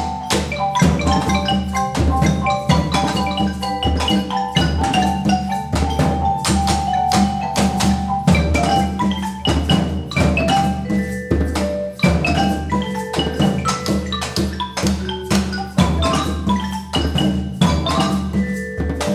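Percussion ensemble playing: marimba and vibraphone play short melodic notes over hand drums and other struck percussion, in a fast, steady rhythm.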